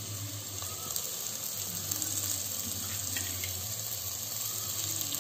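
Sliced onions, green chillies and whole spices frying in ghee and oil in an aluminium pressure cooker, a steady sizzle.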